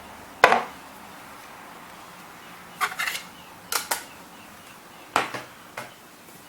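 Kershaw Valmara folding knife being handled, giving a loud sharp clack about half a second in, then a few quicker metallic clicks around three to four seconds and two more a little after five seconds.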